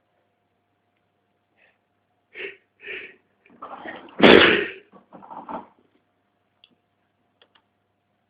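A man sneezing after trying to hold it back: two short catching breaths, a building in-breath, then one loud sudden sneeze about four seconds in, trailing off briefly.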